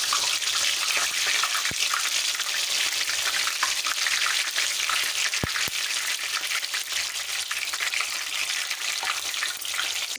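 Sliced okra deep-frying in hot oil on high flame, in a wire-mesh frying basket set in a steel kadai: a loud, steady sizzle with dense crackling.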